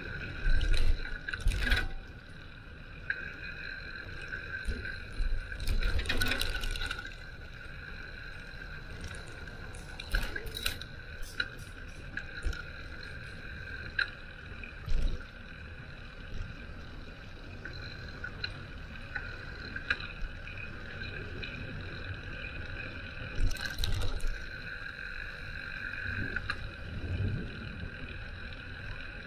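Ride noise from a moving bicycle: scattered clicks, knocks and rattles over bumps, with a few louder low rumbling stretches and a steady whine throughout.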